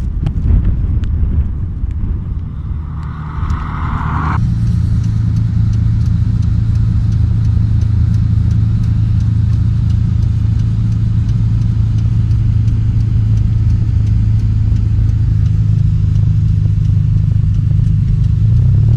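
Motor vehicle engine: a rough rumble for the first few seconds, then from about four seconds in a steady, unchanging low engine drone.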